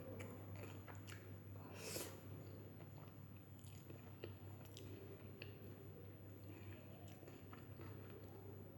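A person chewing and biting a mouthful of chicken biryani, close-miked: soft wet mouth sounds and small scattered clicks, with one louder, brief crunch about two seconds in. A steady low hum runs underneath.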